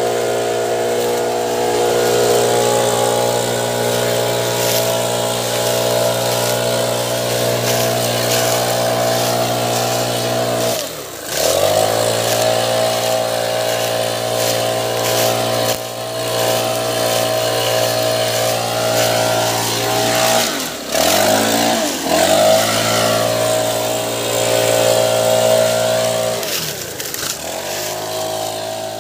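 Stihl backpack blower's engine running at high throttle, blasting air through its tube. The engine speed dips briefly and climbs back once near the middle and three times in the last third.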